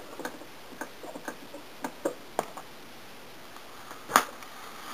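Irregular light clicks from the front control knobs of a 1972 Zenith Circle of Sound clock radio being handled while it is switched over to AM, with one louder click about four seconds in; little else is heard from the radio.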